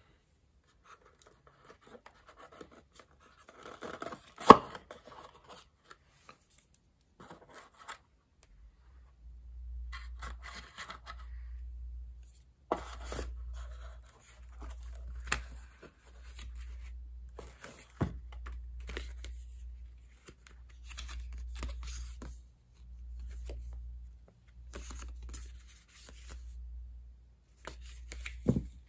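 Small plastic camera mounting parts and packaging being handled: rustling and scraping with sharp clicks, the loudest about four and a half seconds in. A low hum pulses in and out from about eight seconds on.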